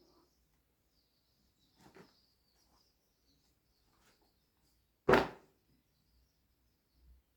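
Faint birds chirping, with a single sharp knock about five seconds in and a softer one near two seconds.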